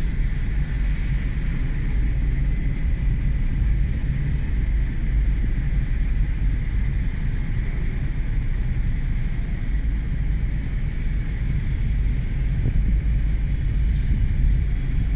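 Union Pacific freight train of autorack cars rolling past, a steady rumble of wheels on rail.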